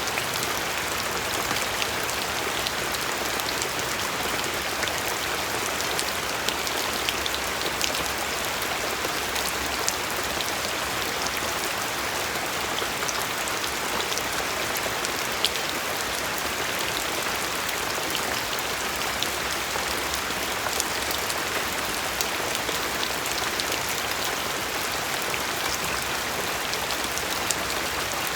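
Steady rain falling, with many individual raindrops ticking sharply on a surface over an even hiss.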